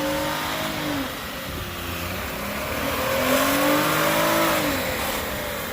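Mazda MPV minivan doing a burnout: the engine revs high, drops about a second in, climbs again and falls away near the end, over the steady hiss of a spinning tyre.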